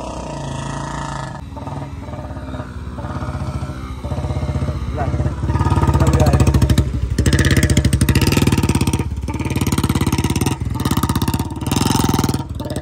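Royal Enfield Bullet 350's single-cylinder engine running and being revved hard through deep mud, getting loudest from about six seconds in, with a second motorcycle engine running alongside.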